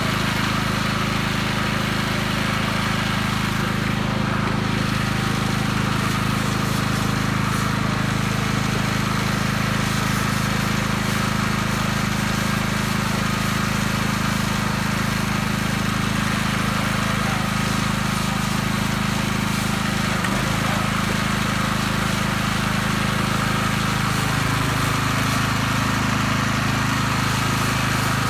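Small gasoline engine running steadily at constant speed, with a slight drop in pitch near the end.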